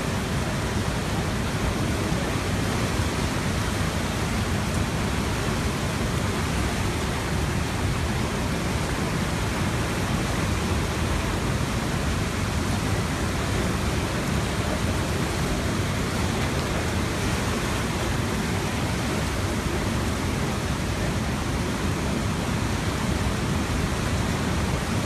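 The flooded Tanaro river rushing steadily, fast muddy floodwater pouring over its banks and through the street in a constant, unbroken noise.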